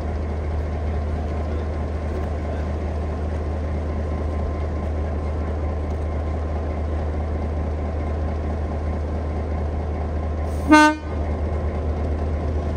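Diesel-electric shunting locomotive Y133 running with a steady low drone as it moves slowly, then one short horn toot near the end.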